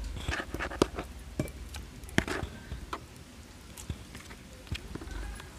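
A hand mixing fish pieces through a thick wet masala paste in a metal pot, giving a scatter of soft, irregular clicks and smacks.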